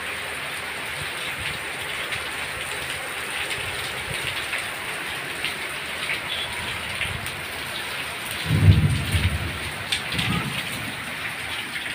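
Heavy rain pouring steadily. Low rumbles of thunder come about eight and a half seconds in and again a moment later.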